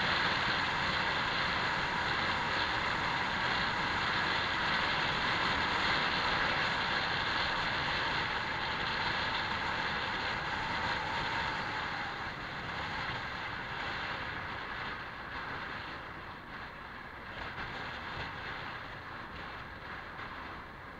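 Honda PCX scooter on the move: steady wind rush and engine noise from riding, growing quieter in the second half.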